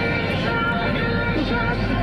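Music from the in-flight safety video playing through the airliner's cabin speakers, over a steady low cabin hum that grows a little stronger about half a second in.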